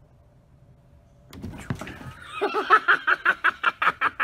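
Near silence for about a second, then a person laughing hard in quick, even bursts, about four or five a second, starting a little past the middle.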